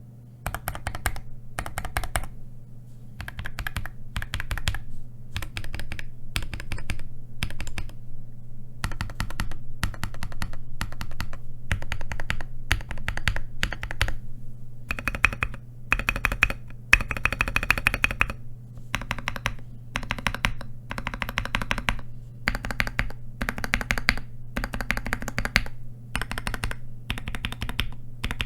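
Scarlet TKL mechanical keyboard with lubed and filmed C3 Equalz Tangerine linear switches on a tape-modded POM plate, its modifier keys being typed in short runs of clacks with brief pauses between them. A faint low hum runs underneath.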